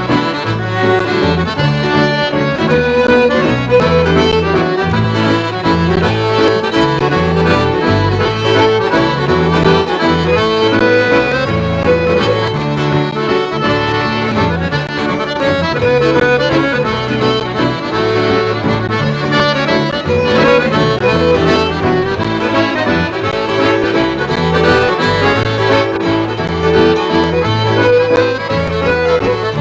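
A traditional Scottish waltz played live, led by piano accordion and fiddle, with guitar and bass accompaniment.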